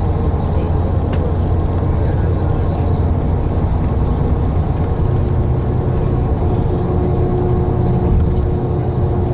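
Steady engine and road rumble heard from inside a tour coach on the move, a deep constant drone with a faint steady hum that grows a little stronger about halfway through.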